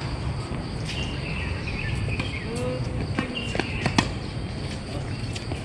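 Tennis balls knocking sharply a few times, struck by rackets or bouncing on the court, about three to four seconds in, the loudest about four seconds in, over a steady low background rumble.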